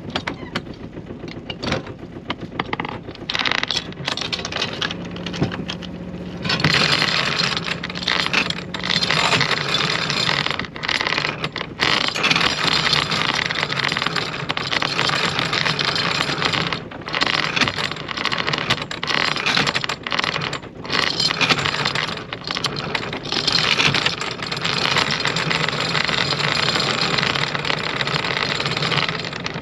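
Anchor chain rattling and scraping as it pays out over the bow, starting in earnest about six seconds in and stopping and starting several times, over the steady hum of the sailboat's engine.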